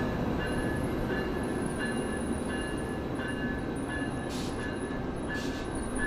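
Siemens Venture passenger cars rolling slowly past, a steady rumble of steel wheels on the rails. A level-crossing bell dings steadily behind it, about once every three-quarters of a second.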